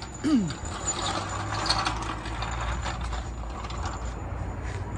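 Daytona steel hydraulic floor jack being worked under a car: metallic rattling and clicking of its mechanism.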